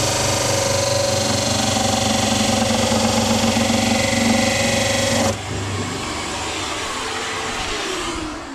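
Bench sander grinding the end of a timber plank: a steady motor whine under a gritty rasp until the wood is lifted away about five seconds in. The motor then runs on alone, switched off near the end and spinning down with a falling pitch.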